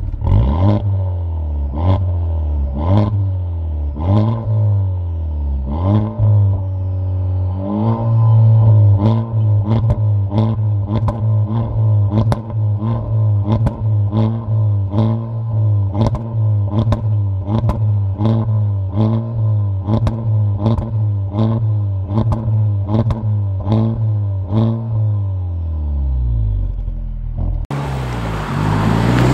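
Honda Civic Type R FK8 with an HKS aftermarket exhaust, its turbocharged 2.0-litre four-cylinder revved repeatedly while parked: throttle blips about once a second at first, then quicker blips about twice a second, before dropping back toward idle. Near the end the sound switches to the car driving past under way.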